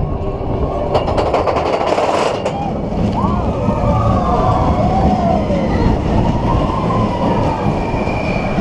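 Expedition Everest roller coaster train running along its track with a heavy, steady rumble. From about three seconds in, riders scream and yell over it.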